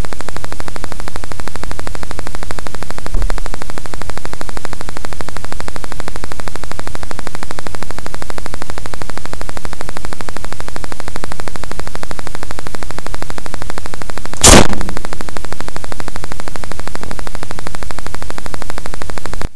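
Small battery-powered carry-case air compressor running hard with a rapid, even chatter, loud and harsh through a cheap webcam microphone. About two-thirds of the way through comes one sharp blast, the homemade pneumatic rifle firing.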